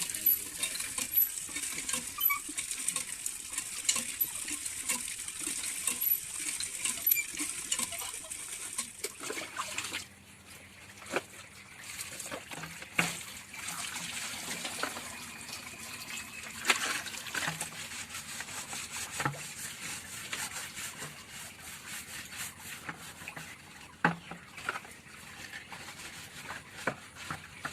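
Water running and splashing for about the first ten seconds, with frequent small clicks, as poultry water pots are washed or filled. After that come scattered knocks and clatters of the pots being handled.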